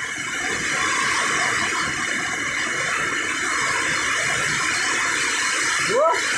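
Steady rushing hiss that holds even throughout. A short rising voice sound cuts in just before the end.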